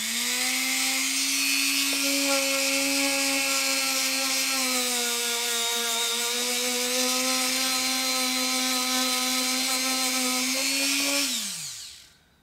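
Dremel rotary tool spinning a cloth buffing wheel against wax polish on a leather shoe toe: a steady high motor whine that spins up at the start, sags slightly in pitch around the middle, and winds down near the end.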